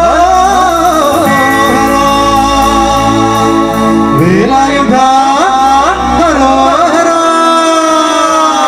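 Live stage singing: male singers holding and sliding through long notes into microphones, over amplified keyboard and band backing.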